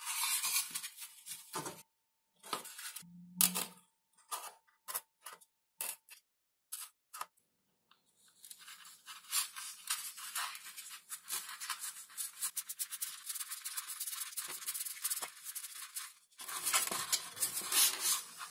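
A hand tool rubbing and scraping on XPS foam board. First a string of separate short strokes, then about eight seconds in a long run of quick strokes, with a louder burst near the end.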